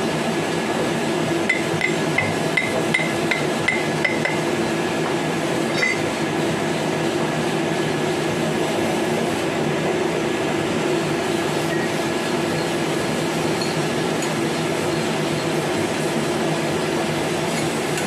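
A quick run of about nine light metal-on-metal taps, roughly three a second, then a single tap a couple of seconds later, as a worm gearbox housing is trued up in a lathe's four-jaw chuck against a dial indicator. A steady hum of workshop machinery runs underneath.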